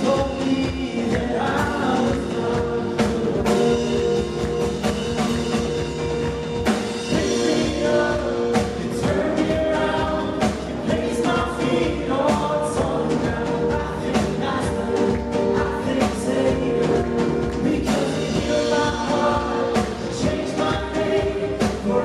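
Congregational worship song: a band with drums plays under several voices singing together.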